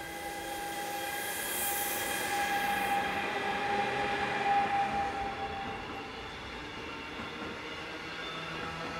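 Electric locomotive hauling a container freight train, passing close by. A whine of several steady high tones over the rolling noise swells as the locomotive comes level about four to five seconds in, then fades as the container wagons roll past.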